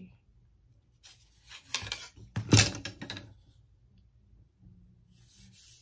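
Wooden spatulas knocking and rubbing against each other as they are handled: a short cluster of clacks and rustles, with one sharper knock about two and a half seconds in.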